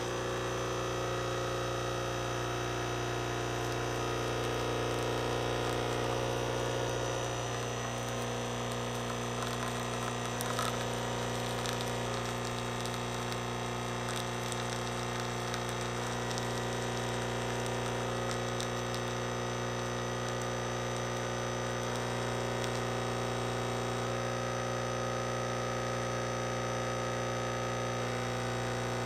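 Nespresso Essenza Mini espresso machine's 19-bar pump humming steadily while it brews a lungo, pushing coffee through the capsule into the cup.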